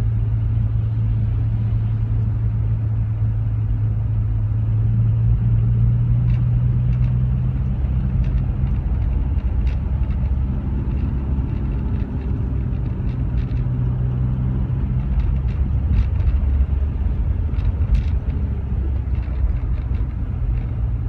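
Inside a Rover 45's cabin: the engine runs with a steady low hum and constant road and tyre noise as the car creeps along a lightly snow-covered road, with a few faint scattered clicks.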